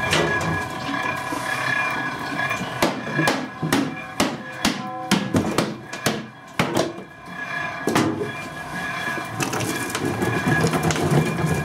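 A string of sharp, irregular knocks and clanks as the parts of a walnut oil press are handled, most of them packed into a few seconds in the middle, over a steady hum.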